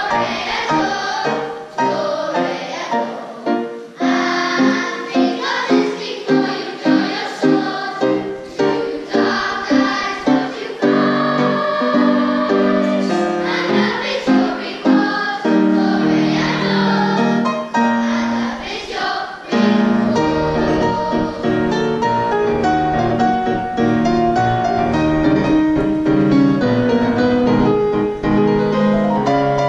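Children's choir singing with grand piano accompaniment. The first third moves in short, evenly pulsed notes, giving way to longer held phrases with fuller low accompaniment.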